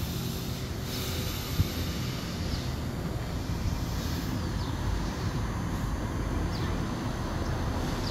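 Outdoor ambience: a steady low rumble with a few short, high, slightly falling bird chirps, and one sharp knock about a second and a half in.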